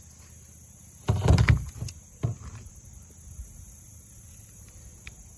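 A hollow knocking and scraping against a kayak about a second in, followed by a shorter single knock, over steady insect chirring.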